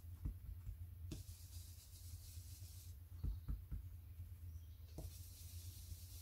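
Soft taps and dabs of a small blending brush on an ink pad and through a plastic stencil onto paper: a few faint knocks, three of them close together a little after the middle. A steady low hum runs underneath.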